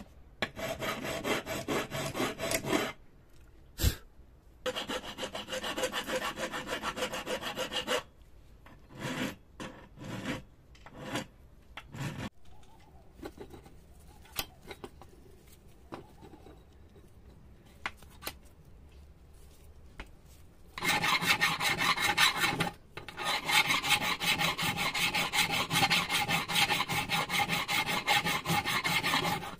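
Hand file scraping back and forth across the bare metal of an old, rusty bubble level clamped in a bench vise. The filing stops for a long stretch in the middle, where only a few scattered knocks and taps are heard, then resumes louder near the end.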